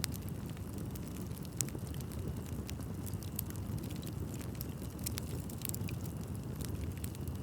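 Wood bonfire burning: a steady low rumble of flames with frequent sharp crackles and pops from the burning wood, one louder pop about a second and a half in.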